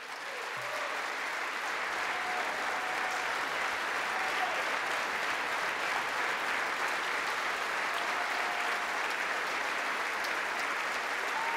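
A large crowd of lawmakers applauding. The clapping builds over about the first second, then holds steady and dense.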